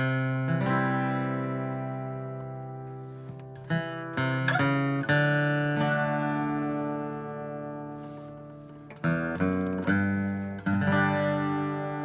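Steel-string acoustic guitar strummed with a pick: chords struck and left ringing, a few strums about four to five seconds in and a quicker cluster of strums near the end.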